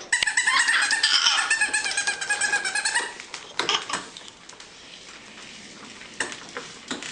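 A baby squealing and laughing happily in a long, high-pitched run of about three seconds, with rapid clicks and rattles mixed in. Shorter squeals follow a couple of times over a quieter background.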